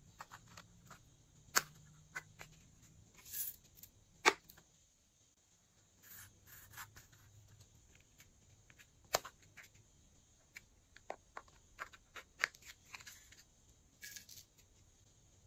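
Scattered sharp clicks and short crunchy crackles as a gold shell-shaped piece is pressed and crumbled between the fingers over a glass tray of slime base.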